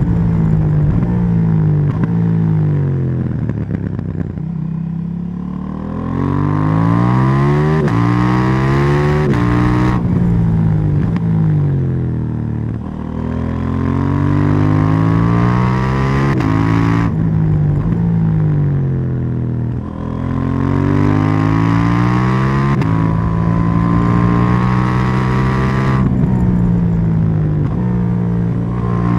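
KTM 790 Duke's parallel-twin engine and exhaust under hard acceleration, the pitch climbing and then dropping sharply at each upshift, over and over. About four to six seconds in the revs fall away before it pulls up again.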